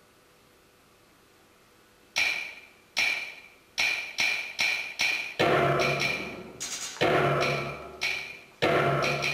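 Faint hiss, then about two seconds in percussive music starts: single sharp strikes that each ring out, coming closer together, joined after about five seconds by a lower sustained layer.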